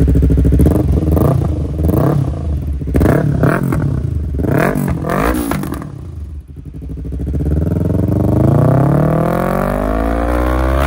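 Yamaha R3's parallel-twin engine revved through a replica slip-on silencer held by hand on the link pipe. It gives several quick throttle blips in the first half, then one long rev that climbs steadily in pitch for about four seconds near the end.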